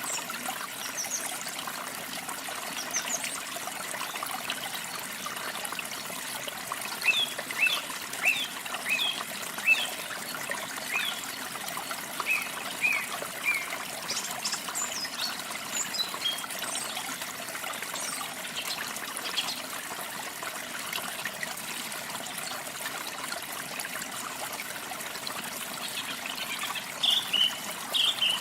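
Steady trickle of running water, with small birds chirping in short, quick notes. There is a run of chirps about a quarter of the way in and a louder burst near the end.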